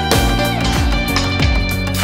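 Background music: an upbeat guitar-led track with a steady beat.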